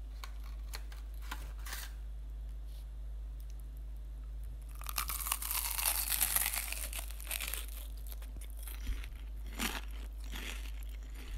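Crisp crackling crunch of deep-fried menbosha (shrimp toast on fried white bread). Scattered crackles build to a dense crunching stretch about five to eight seconds in, then a few more crackles near the end.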